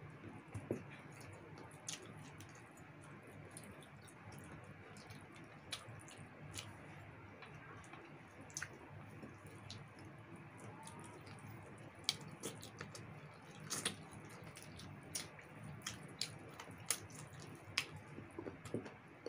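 Two people chewing roast chicken close to the microphone, with wet lip smacks and mouth clicks scattered throughout, coming more often in the second half, over a faint steady background hum.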